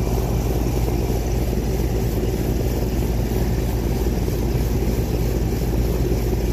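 Heat Controller residential AC condensing unit running: compressor and condenser fan motor making a steady low hum under the rush of fan air. The unit is running normally on a newly fitted dual run capacitor that replaced a shot one.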